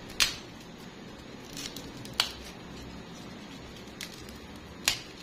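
A crusty baguette being torn and broken apart by hand, its crust giving several sharp crackling snaps as pieces come off.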